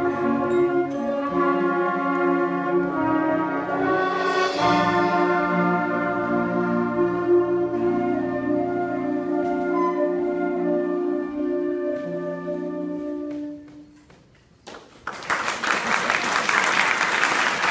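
School concert band of flutes and brass playing sustained chords, ending on a held final chord that dies away about two-thirds of the way through. After a brief pause, audience applause breaks out.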